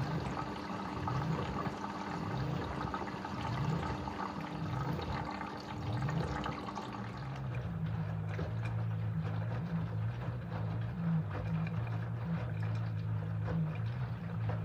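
LG F13D9NC front-loading washing machine at work: water running in and sloshing as the drum turns the load. About halfway the inflow sound stops and a steady low motor hum comes up, with water swishing as the laundry tumbles in the 30 °C main wash.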